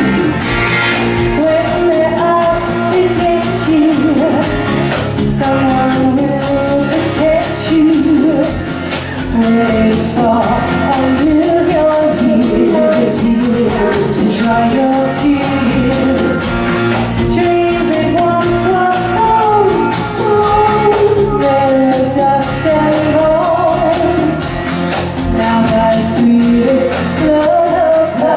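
Live band performance of a song, a woman singing the lead melody over a steady beat and backing instruments.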